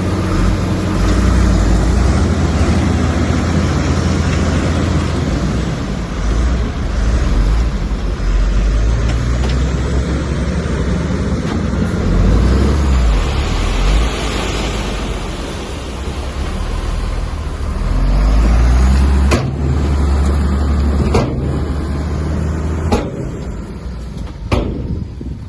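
Heavy diesel earthmoving machinery running and working under varying load, a deep engine rumble that swells and eases, with four sharp knocks in the last few seconds.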